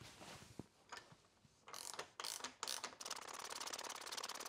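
Threaded bottom bracket cup being worked into a carbon frame with a ratchet-handled bottom bracket tool: a scrape, then scattered clicks and short scrapes. From about three seconds in comes a fast, even crackle, the protective tape being peeled off from around the cup.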